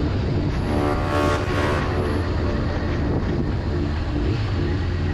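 Sport motorcycle's engine running at steady revs while riding, with wind rushing over the microphone.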